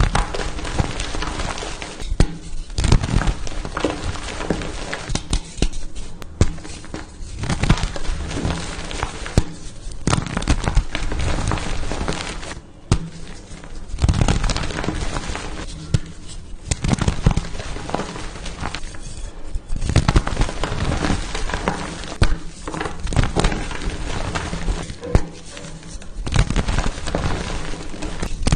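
Blocks of pasted gym chalk being crushed: dense crunching and crumbling, full of sharp cracks, in a run of separate crushes with short pauses between them.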